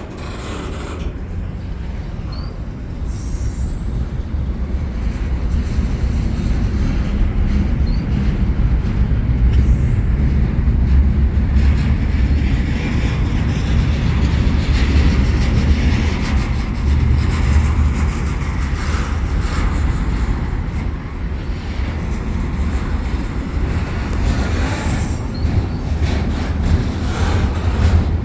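A long CPKC double-stack freight train passing close by, its wheels rumbling steadily on the rails. The sound grows louder over the first several seconds, then holds.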